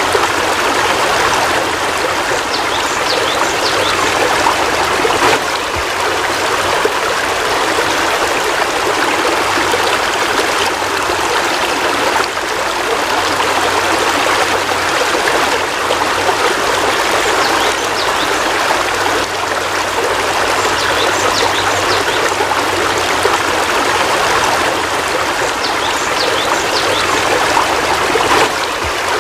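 Heavy rain falling steadily: a dense, even hiss of water with scattered sharper drops.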